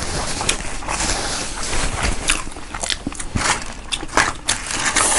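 Close-miked eating: biting and chewing food, with many short crisp clicks and smacks at an uneven pace.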